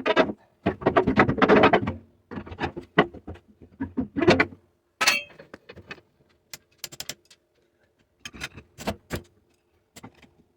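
Irregular metal clanking and rattling, a dense run of sharp clicks in the first half that thins to scattered single clanks later.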